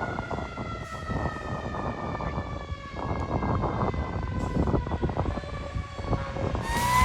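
Federal Q mechanical siren on a fire engine, its pitch sliding slowly down as it coasts, then winding back up near the end. The truck's engine and road noise run underneath.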